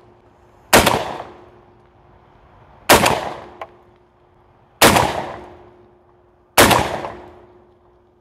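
Girsan MC312 semi-automatic 12-gauge shotgun firing four shots about two seconds apart. Each is a sharp report that dies away over about a second. It is a function-test string after fitting a magazine tube extension, moving from 2¾-inch to 3-inch shells.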